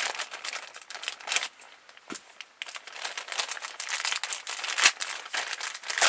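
Packaging from a mail-order package crinkling and rustling in irregular crackles as it is cut open and unwrapped by hand.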